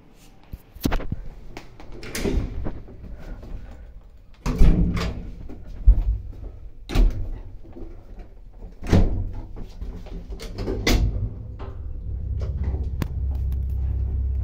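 Manual doors of an old ZUD passenger lift being shut: a string of bangs, clicks and thuds as the landing door and the cabin's swing doors close and latch. About twelve seconds in, a steady low hum sets in as the lift starts to move.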